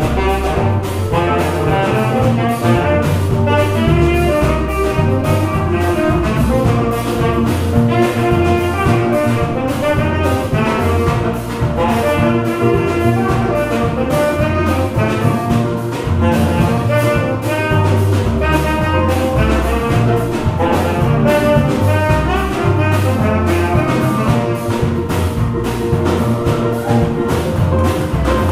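Small jazz band playing live: a tenor saxophone carries the melody over electric bass, guitar and a drum kit keeping a steady beat.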